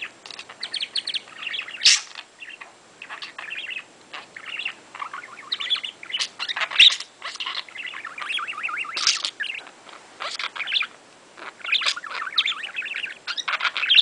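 Male budgerigar warbling and chattering: a fast, continuous run of chirps, clicks and squeaky notes with a few sharper calls. This is a talking budgie, and mimicked words ('I love you') are woven into the warble.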